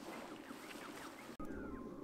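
Quiet outdoor ambience: faint short bird chirps over a low, steady background hiss, with a sudden brief dropout a little past halfway.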